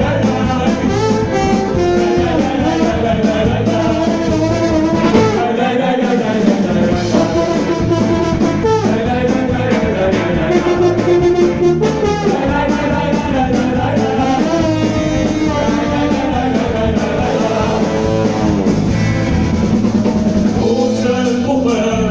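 Live band playing, with several men singing together into microphones over drums, trombone and accordion.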